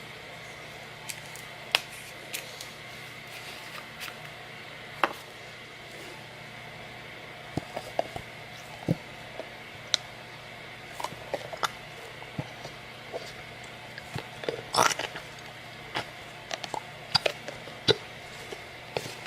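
School-glue bottles and a plastic bowl handled while glue is squeezed out: scattered light clicks and taps over a steady background hum, with a quick cluster of louder clicks about fifteen seconds in.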